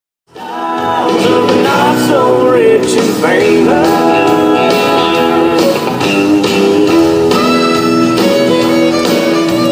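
Country song with guitar and a singer, starting suddenly out of silence.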